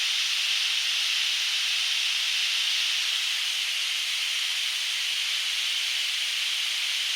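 Waterfall: a steady hiss of rushing, falling water with no lows, unchanging throughout.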